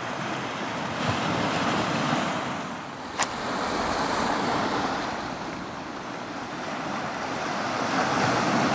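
Sea waves breaking and washing over a rocky boulder shore, swelling and ebbing every few seconds, with a single sharp click a little over three seconds in.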